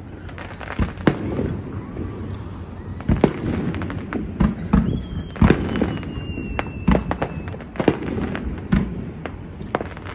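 Aerial fireworks bursting in quick, irregular succession: many sharp bangs over a low rumble of echoing reports. About halfway through, a thin whistle slowly falls in pitch.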